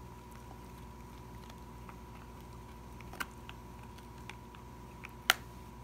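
A dog gnawing raw venison rib bones: scattered small clicks and crunches of teeth on bone, with a sharp crack about three seconds in and a louder one about five seconds in, over a low steady hum.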